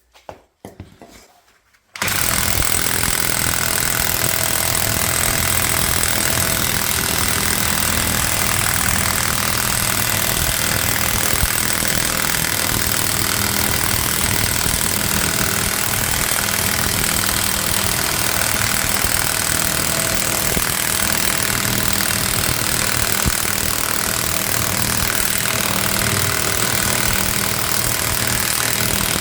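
Parkside PASSK 20-LI B2 brushed cordless impact wrench hammering continuously as it drives a puller's forcing screw to press out a wheel hub bearing. It starts about two seconds in and keeps going without a break.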